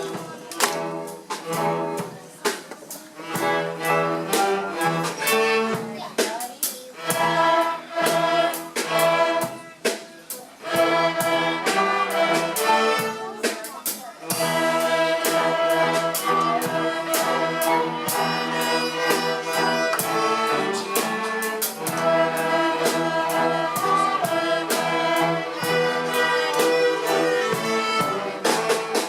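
Children's string ensemble of violins and other bowed strings playing a tune, with sharp percussive hits scattered through the first half. From about halfway through, the strings play on more steadily.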